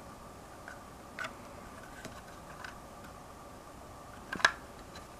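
Light clicks and taps of plastic LEGO pieces being handled as the hinged caravan wall is swung open, with one sharper click about four and a half seconds in.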